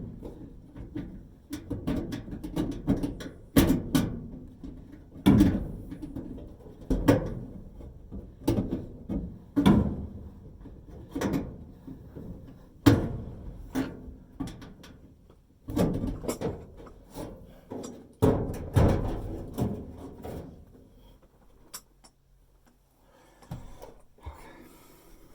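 Irregular knocks, clunks and scrapes of hands and a part being worked into the back of a dryer, a sharp knock every second or two, thinning out near the end.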